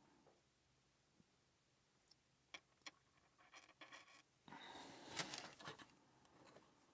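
Faint metallic clicks and scraping of lock picks and a tension tool working in a tiny Firaco Cration padlock: a few sharp clicks, then a longer scraping rustle about two-thirds of the way through.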